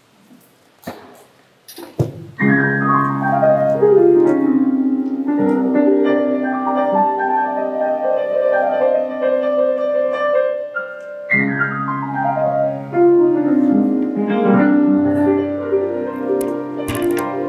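Piano music starts about two seconds in with a falling run of notes that settles into held chords. A second falling run comes about halfway through.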